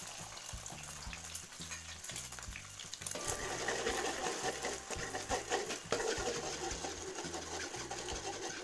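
Two eggs frying in hot oil in a wok, sizzling steadily. From about three seconds in, a spatula scrapes and taps against the pan as the eggs are scrambled, over quiet background music.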